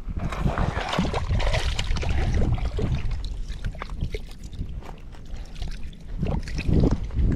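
Shallow water splashing and sloshing as a small catfish is let go at the water's edge, over a low rumble, with a few dull knocks near the end.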